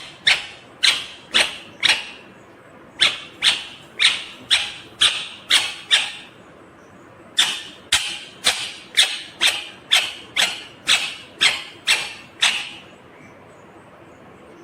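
Indian ringneck parrot giving short, sharp, high calls, about two a second, in three runs of repeated calls that stop a couple of seconds before the end.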